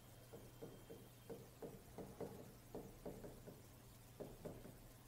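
Chalk tapping on a blackboard as a line of words is written: faint, light taps, about three a second. They stop just before the end.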